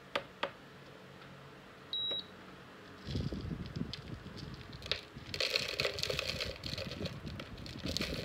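Two clicks from the buttons of a digital scale's keypad, then a short beep about two seconds in. From about three seconds in, white emulsifying-wax flakes pour and rattle into a plastic jug on the scale.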